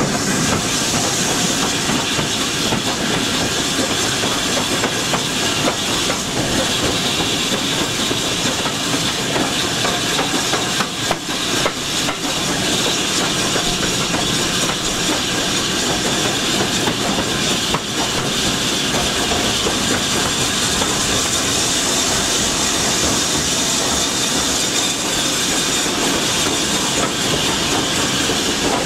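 BR Standard Class 7 'Britannia' two-cylinder Pacific steam locomotive running with its train: a steady hiss of steam over the rumble of the coaches, with the clack of wheels over rail joints.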